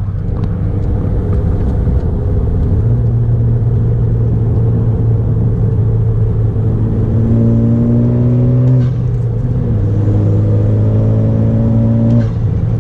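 10th-gen Civic's 1.5-litre turbocharged four-cylinder drawing through a PRL Cobra cold air intake while accelerating on the road, its note climbing slowly, dropping about 9 seconds in as it changes gear, then climbing again and dropping once more near the end. Heavy wind noise on the outside-mounted camera microphone runs under it.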